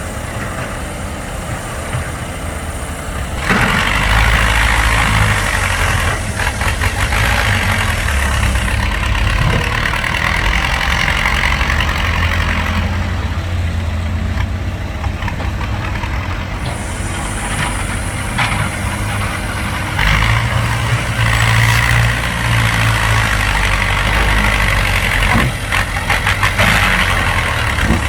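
Heavy diesel engine working hard. It comes up to a loud, labouring pitch twice, each time for about eight or nine seconds, and eases back to a lower running note in between.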